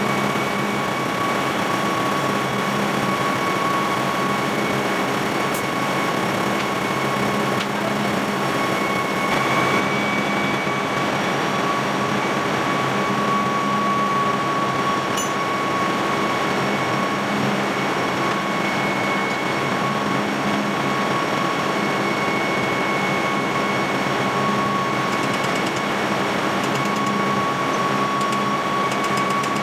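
Steady drone of a ship's engine-room machinery, with a constant high-pitched whine running through it.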